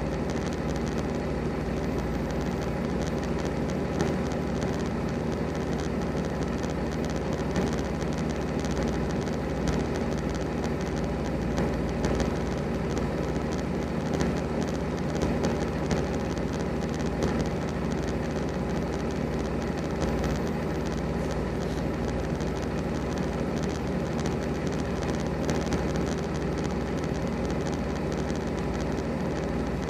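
Steady diesel idling from the parked semi-trucks, an even low hum that does not change.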